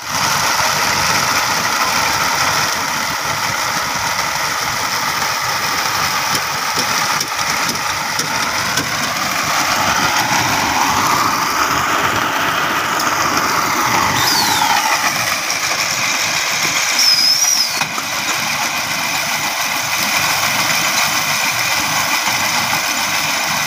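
Silage baling-and-wrapping machine running steadily as it wraps a bale in stretch film, with a couple of short high squeals past the middle.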